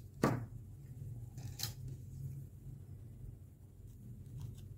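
A few sharp clicks and light ticks as a thin metal pick tool is picked up and worked against the small plastic tank part of a disposable vape. There is a louder click about a quarter second in and another about a second and a half in, over a steady low hum.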